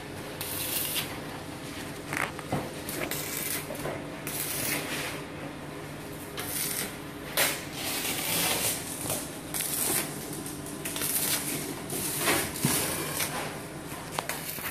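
Stick (MMA) welding arc crackling and hissing in short bursts, about a dozen spread unevenly, as tack welds are struck on a steel frame with an MMA-200 inverter welder set at about 165 A. A steady low hum runs underneath.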